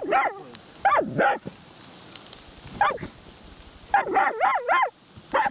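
Hunting laika barking at a badger in its burrow, with high, sharp barks. There are a few single barks, then a quick run of four about four seconds in.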